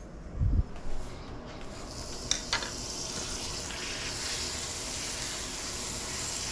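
Butter sizzling on a hot cast-iron griddle, the hiss building steadily and then holding. A low thump about half a second in and a couple of light clicks come before the sizzle builds.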